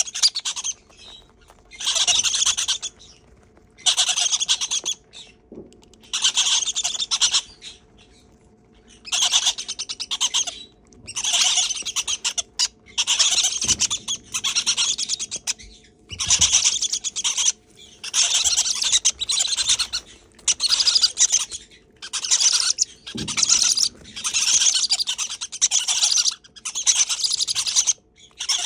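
Unweaned green-cheeked conure chicks giving rasping begging calls for their hand-feeding formula, each call lasting about a second and repeated every second or two.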